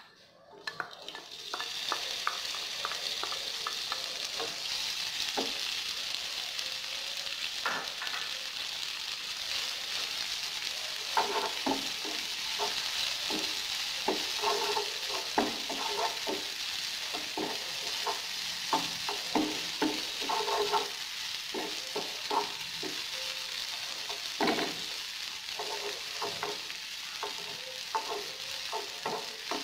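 Diced beef sausage and red chilli sizzling in hot oil in a frying pan, the sizzle starting about a second in as the pieces go in. A wooden spatula taps and scrapes against the pan over and over as they are stirred.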